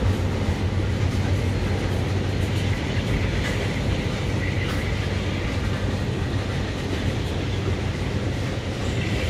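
Freight train's tank cars and covered hoppers rolling past, with the steady rumble of steel wheels on rail.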